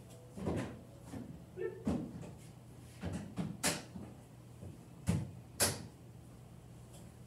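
Irregular knocks and clunks of a plastic airtight clay bin and its lid being handled, opened and pressed shut, the sharpest about halfway through and again a little later. A low steady hum runs underneath.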